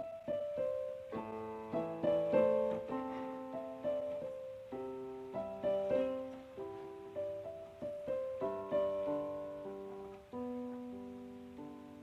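Background music: a slow, calm piano piece, single notes and chords struck one after another and left to fade.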